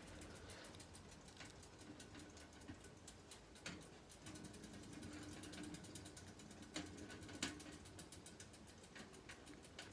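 A freewheel ratcheting: a faint, fast, even clicking of its pawls, with a few louder clicks. This is the noise the owner complains of.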